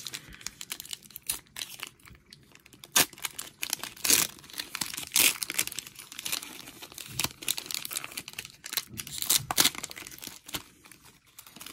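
A trading card pack's cellophane wrapper being torn open and peeled back by hand: a run of irregular crackles and rips, with a few louder tears in the middle and near the end.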